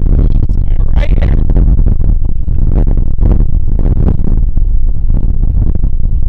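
Heavy wind buffeting the microphone: a loud, ragged low rumble that never lets up, with a brief higher sound about a second in.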